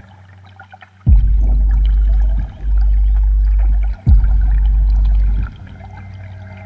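Ambient electronic music played live: three deep sub-bass tones, each held about a second and a half, the first and last starting with a sharp falling thump, over a faint crackling high texture.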